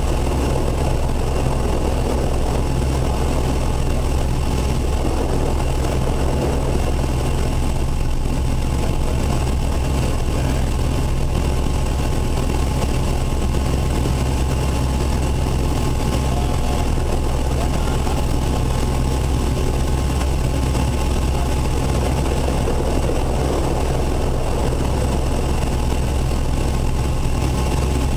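Airbus EC175's twin Pratt & Whitney PT6C-67E turboshaft engines running steadily on the ground, heard from inside the cockpit: a constant low drone with a steady high turbine whine over it.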